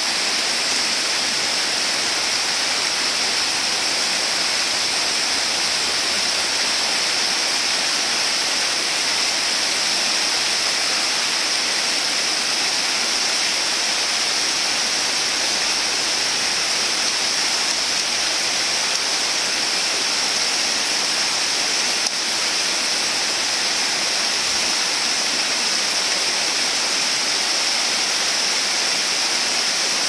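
Small waterfall pouring over a rock ledge into a pool: a steady, unbroken rush of falling water.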